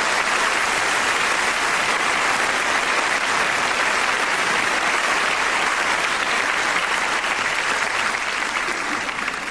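Large theatre audience applauding, a steady dense clapping that eases off near the end.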